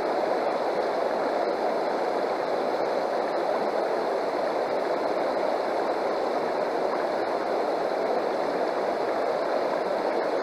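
Shallow river water rushing steadily over rocks and through a metal sluice box set in the current.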